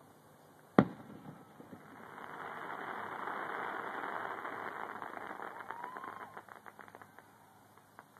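A distant aerial firework shell bursting with one sharp boom about a second in. A rushing noise then swells and fades, and a run of quick crackles follows as the stars burn out.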